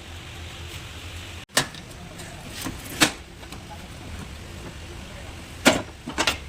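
A few sharp knocks over a steady low hum: one about a second and a half in, one near the middle and two close together near the end.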